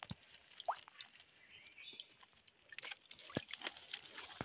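Water dripping and splashing off a mesh fishing net in a shallow stream, sparse drips at first, then a denser run of splashes and trickling from about three seconds in as the net is lifted out of the water.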